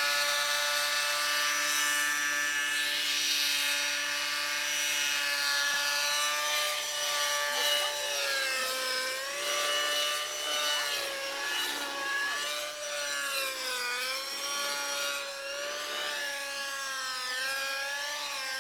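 Radio-controlled model helicopter flying, its high-pitched motor and rotor whine holding steady at first, then repeatedly dipping and rising in pitch from about eight seconds in as it manoeuvres.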